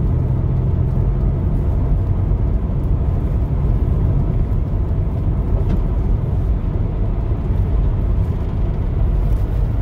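Inside the cabin of a 2007 Toyota Highlander V6: steady engine and road rumble at highway speed, with no clear rev flare or shift.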